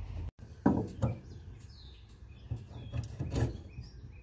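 A few separate clunks and knocks as the steering shaft is worked by hand in its new 3D-printed plastic bushing, which still has a little play. Birds chirp faintly in the background.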